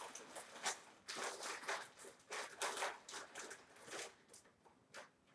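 Faint, irregular crinkling and rustling of a clear plastic bag being handled.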